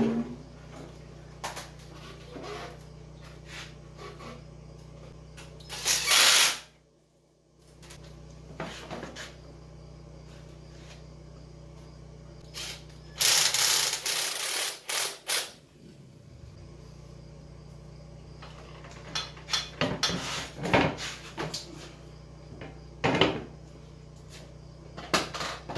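Hand tools being worked on a motorcycle engine: scattered metal clicks and ratcheting over a low steady hum. There are two loud hissing bursts, a short one about six seconds in and a longer one of about two seconds from about thirteen seconds in.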